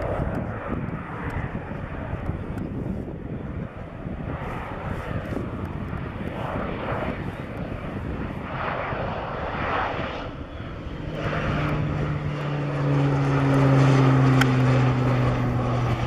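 Air Tractor AT-802F air tanker's Pratt & Whitney PT6 turboprop and propeller running as the aircraft flies in low and passes close by. A rushing sound grows louder, with a steady low propeller hum coming in about eleven seconds in and the sound loudest a few seconds before the end.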